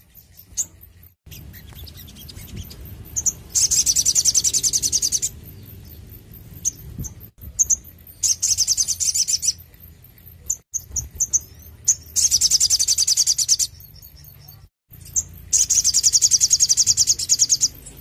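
Olive-backed sunbird singing: four bursts of rapid, high repeated notes, each lasting a second and a half to two seconds, with short single chirps in between.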